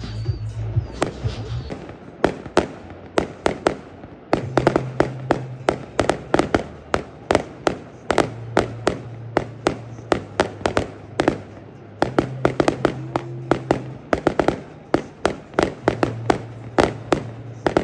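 Fireworks going off in rapid volleys of bangs and crackles, several a second, with a few short lulls between volleys.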